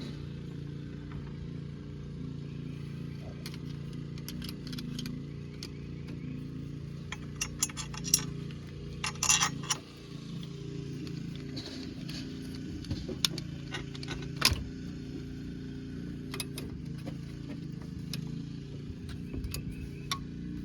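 Metal hand tools and parts clinking and clattering in scattered sharp knocks, busiest from about eight to ten seconds in, with one more loud clink a little later, over a steady low hum.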